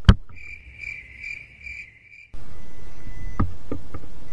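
Lucky handheld sonar fish finder's fish alarm beeping: a high steady tone pulsing about twice a second for about two seconds, the sign that the sonar has picked up fish. It follows a sharp click and breaks off suddenly into a steady rushing noise with a few knocks.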